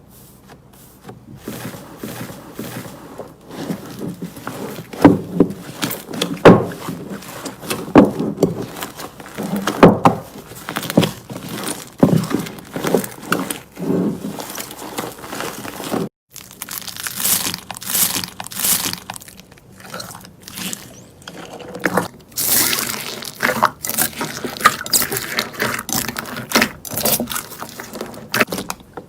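Slime being squeezed and poked by hand: a dense run of irregular wet clicks and pops. After a brief break about 16 seconds in it turns to a crisper, higher crackle.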